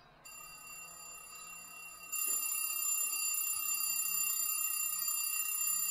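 Alarm clock ringing: a steady, high ringing of several held tones over a hiss, which gets louder about two seconds in.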